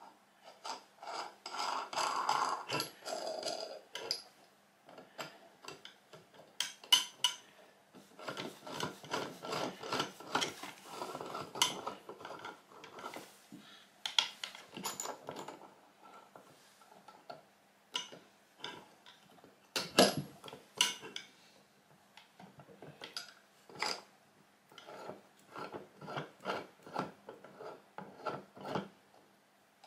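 Small steel parts handled and screwed by hand onto a threaded rod: a run of light metallic clicks and rubbing as nuts and a threaded tube are turned on the threads, with a few sharper knocks, the loudest about twenty seconds in.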